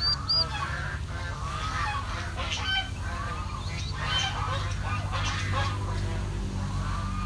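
A flock of about eleven domestic geese honking, with many short overlapping calls. Two short, high chirps come just after the start, over a steady low hum.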